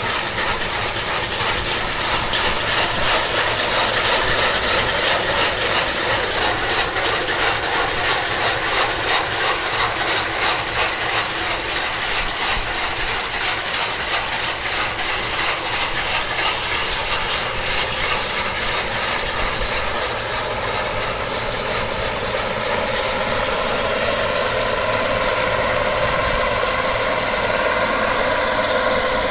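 Bizon Z056 combine harvester at work close by: its diesel engine running under load under a dense, steady rattle of the threshing and straw-walker machinery, with fast ticking throughout.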